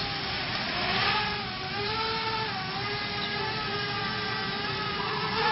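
Brushless Emax 2205-2300 motors and 5-inch three-blade propellers of a QAV-R 220 racing quadcopter whining in flight, the pitch rising about a second in and then shifting up and down with the throttle.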